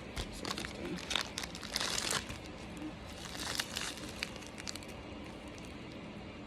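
Small plastic packaging bag holding clay heart pieces, crinkling in irregular bursts as it is handled, then settling down for the last second or so.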